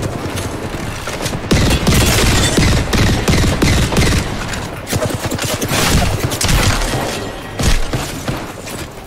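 Rapid gunfire from a first-person shooter video game's audio, shot after shot in quick succession.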